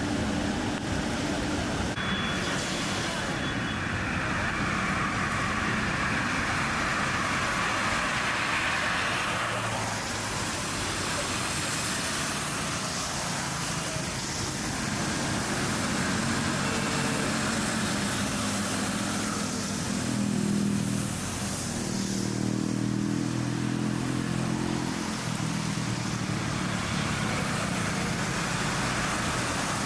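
Road traffic noise: vehicles passing steadily with a continuous tyre-and-engine hiss, and a heavier engine hum, such as a bus or truck, about two-thirds of the way through.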